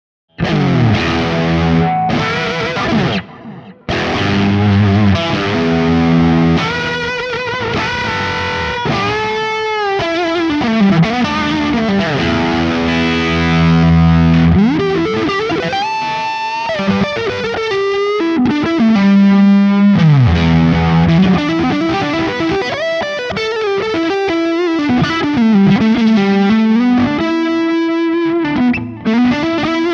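Electric guitar with Dreamsongs Vintage '50s Telecaster pickups played through a Kemper profiling amp on a fuzz profile with delay: a distorted, fuzzy lead of held notes and string bends. The playing starts about half a second in, with a short break about three seconds in.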